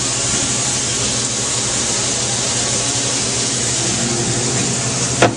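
Three ground-beef burgers sizzling steadily in olive oil in a frying pan, over a low steady hum. A single sharp click comes near the end.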